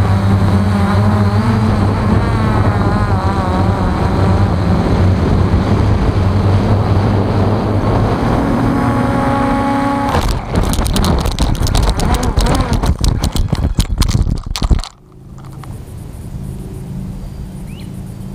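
Electric RC model aircraft's motor and propeller whining steadily in flight, its pitch wavering. About ten seconds in, a rapid series of knocks and clatters as it crashes and cartwheels across the grass, cutting off sharply about five seconds later. A much quieter steady hum is left. The uploader puts the crash down to a burned-out ESC.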